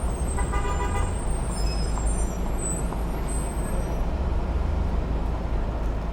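Heavy city street traffic: idling car, bus and truck engines in a steady low rumble. A car horn toots once, briefly, about half a second in, and thin high squeals sound over the first few seconds.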